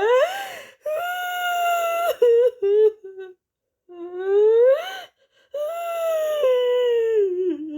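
A woman crying: long, high wails that rise and then fall away, broken by a run of short sobs about two seconds in.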